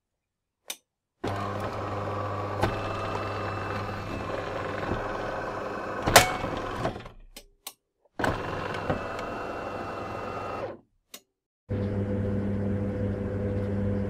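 De'Longhi Magnifica automatic espresso machine working through a cappuccino cycle: a steady mechanical hum in stretches of a few seconds, cut by short silences, with sharp clicks, the loudest about six seconds in.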